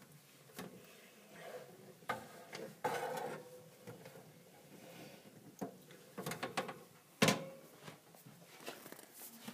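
A hamster eating: irregular chewing and rustling with scattered clicks, and a sharp knock about seven seconds in.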